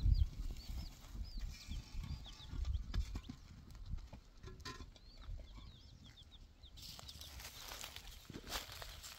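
Small birds chirping over and over in short, high, hooked calls, while hollow concrete blocks are set down and shifted on the soil with dull knocks and thumps, loudest near the start.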